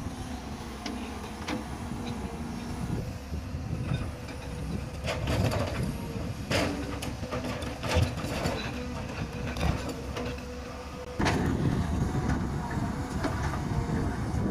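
Crawler excavator's diesel engine running under hydraulic load while it digs rocky soil, with a faint steady whine and scattered knocks and clatters of rocks against the bucket. The sound jumps louder about eleven seconds in.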